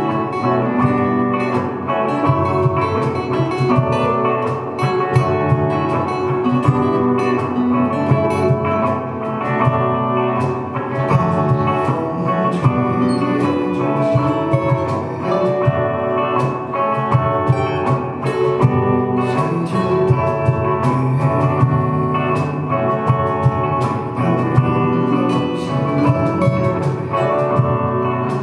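Live rock band playing an instrumental passage: guitars over bass, with regular drum and cymbal hits, and no singing.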